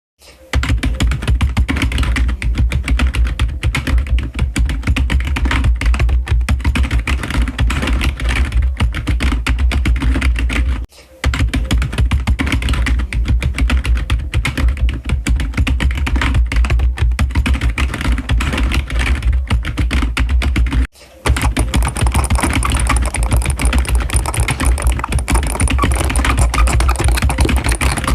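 Rapid, dense clicking that goes on without a break, stopping briefly twice, about 11 and 21 seconds in. The last stretch is brighter and hissier than the first two.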